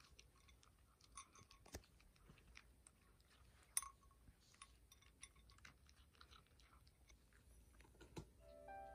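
A cat crunching dry kibble: faint, irregular crunches and clicks, with one louder click about four seconds in.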